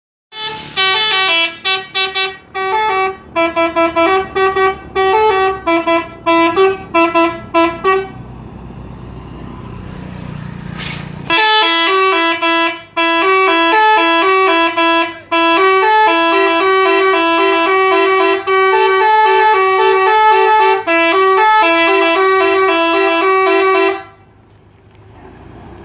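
Telolet bus horn, a multi-tone musical air horn, playing a tune. It sounds a string of short rapid notes for about eight seconds, then pauses under a low rising rumble, then plays a longer run of held and stepping notes that cuts off about two seconds before the end.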